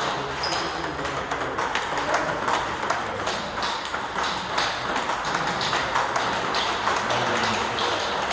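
Table tennis rally: the ball clicking off the bats and bouncing on the table in quick alternation, a few sharp ticks a second.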